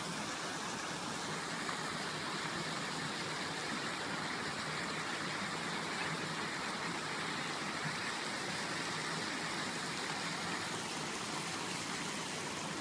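Water pouring steadily over the edge of a low stone weir, an even splashing rush.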